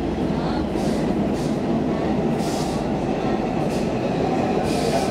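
Stockholm Metro C14 subway car running at speed, heard from inside the passenger car: a steady rumble of wheels on rail, with several brief high hisses every second or so.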